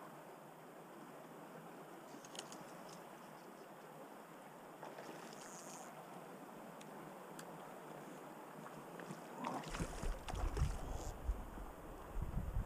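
Steady hiss of a small flowing stream with a few faint ticks. About ten seconds in, irregular low rumbling bumps come in and become the loudest sound.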